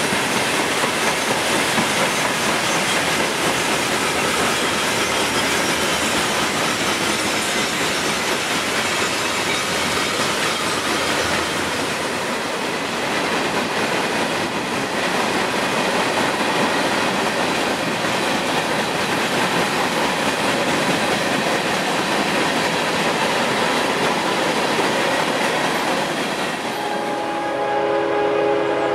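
Freight cars rolling past, with steady noise of steel wheels on the rails. Near the end a locomotive air horn starts to sound, several held tones together.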